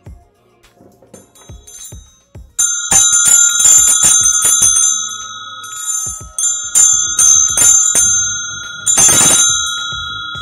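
A pair of bronze puja bells tied together, shaken by hand so the clappers strike again and again and both bells ring with clear, lasting tones. A few faint clinks come first; the ringing starts loud about two and a half seconds in, eases around six seconds, then picks up again with a quick flurry of strikes near the end.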